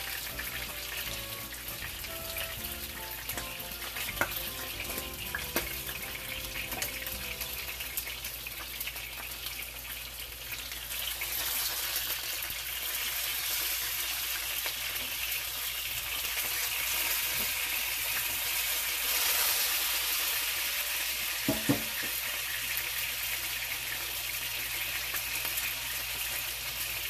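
Tuna steaks frying in hot oil in a nonstick pan: a steady sizzle that grows louder about ten seconds in. A few sharp clicks come from the metal tongs turning the pieces.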